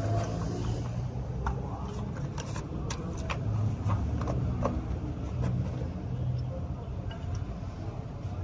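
Light metallic clicks and clinks of brake-pad shims and retaining clips being handled and fitted onto new disc brake pads, scattered irregularly, over a steady low background rumble.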